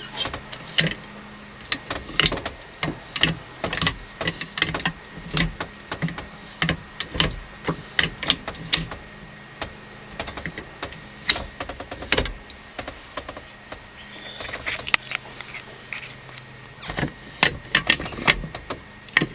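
Modified sheet-aluminium gear shifter in a Holden Rodeo ute being moved through the gears: a string of irregular clicks and clunks, over a steady low hum.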